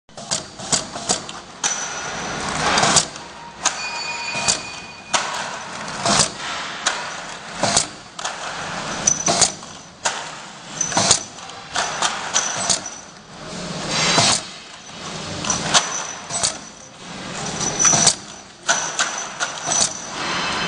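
Self-adhesive labeling machine running, with a steady clatter of sharp clicks and knocks, the loudest every second or two, and a few short high-pitched tones.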